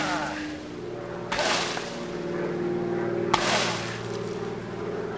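Kicks striking a banana tree's soft, fibrous trunk, three times, at the start, about a second and a half in and just past three seconds in, each a sharp thud with a rustle of leaves. The last kick snaps the trunk.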